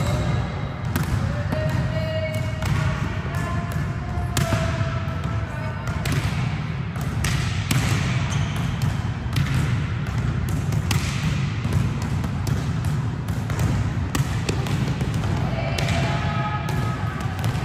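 Volleyballs being hit and bouncing on a hall floor, irregular thuds several times a second over a steady low hum, with players' voices calling briefly near the start and near the end.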